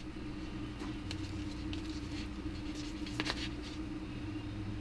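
A steady low hum with a few faint, light clicks and taps scattered through it.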